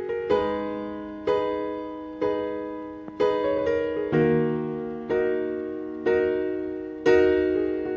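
Background piano music: slow chords struck about once a second, each ringing out and fading before the next.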